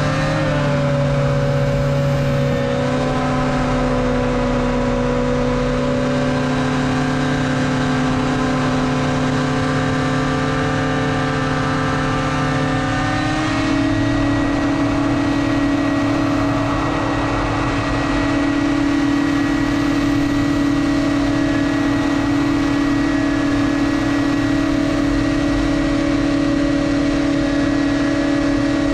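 Racing hovercraft's engine and fan running hard and steady, close up on board; the engine note steps up to a higher pitch about halfway through and holds there.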